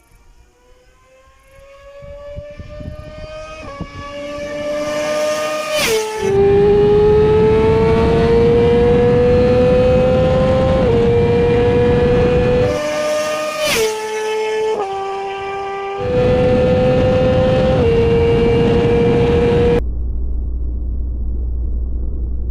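2018 Yamaha YZF-R6 inline-four with an aftermarket slip-on exhaust, revving very high under hard acceleration. Its pitch climbs slowly and drops briefly at each of several upshifts, over loud wind rush. It cuts off abruptly near the end to a low rumble.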